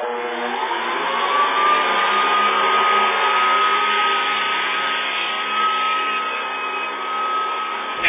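Hoover Custom Convertible upright vacuum cleaner switched on: the motor starts suddenly and spins up with a rising whine over the first second or two, then runs steadily with its suction hose attached.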